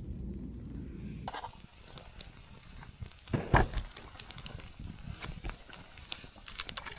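Wood campfire burning, crackling with scattered sharp pops and snaps, and one louder knock about three and a half seconds in. For about the first second there is a low rushing noise instead.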